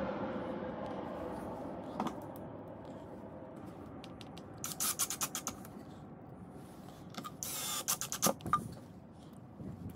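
Cordless drill-driver driving screws into a plywood box in short bursts with rapid clicking, about five seconds in and again near eight seconds, over a low hum that fades away in the first few seconds.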